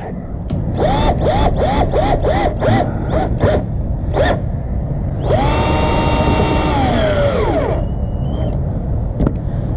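Power drill driving screws into the bumper to mount an LED running-light bracket. It runs in short pulses, about three a second for a few seconds, then in one steady whine for about two seconds that winds down near the end.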